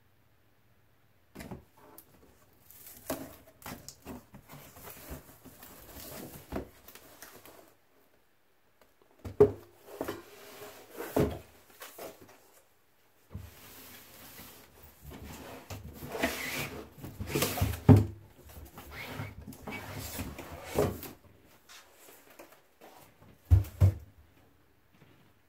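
Cardboard box being opened and a plastic child booster seat lifted out by hand: irregular rustling and scraping of cardboard flaps, with sharp knocks and a few louder thumps as the box and seat are handled and set on the table.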